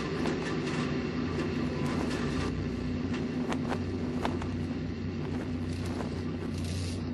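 Rocket launch noise: a steady low rumble with sharp crackles scattered through it.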